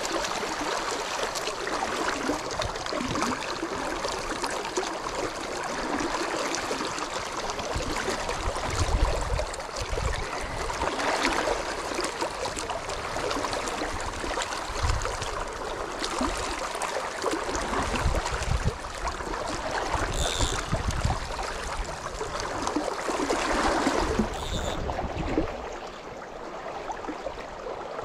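Shallow river current rushing and splashing over rocks and around the wading angler's legs, a steady water noise with low rumbles here and there.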